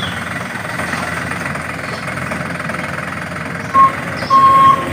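Simulated diesel truck engine sound of a radio-controlled MAN dump truck running steadily, then a reversing beeper near the end: one short beep, then a longer one.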